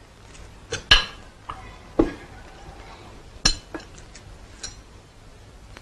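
Dishes and cutlery clinking as they are handled: a handful of separate light knocks and clinks at irregular intervals.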